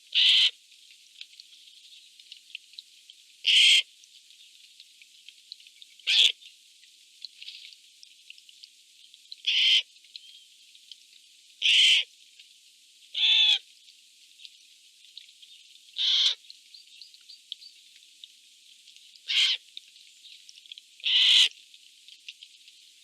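Eurasian jays giving nine short, harsh screeches, spaced every two to three seconds.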